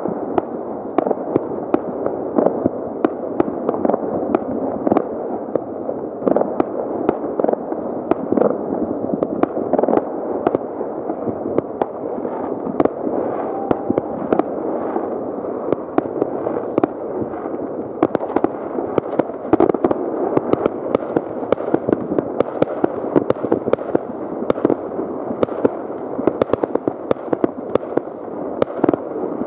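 Fireworks and firecrackers going off all around at once: many distant bangs merge into a steady din, with frequent sharp cracks standing out throughout.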